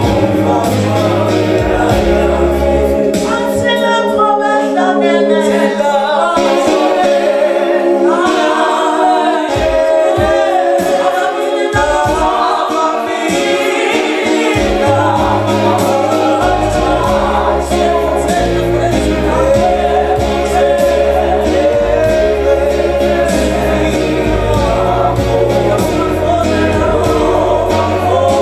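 Women's vocal trio singing a gospel song in harmony. A low bass accompaniment drops out about three seconds in, leaving the voices nearly alone, and comes back about halfway through.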